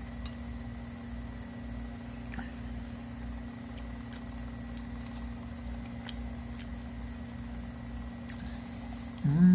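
A person chewing and biting a mouthful of stewed meat and rice, with soft wet mouth clicks over a steady low hum. Near the end, a brief loud voice sound.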